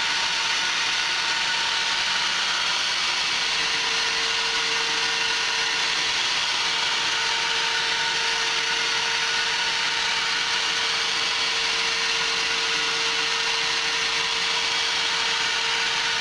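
Benchtop CNC mill's spindle running while a thin end mill cuts a wooden CO2 dragster blank: a steady whine over an even hiss, the lower part of the whine growing stronger about three and a half seconds in.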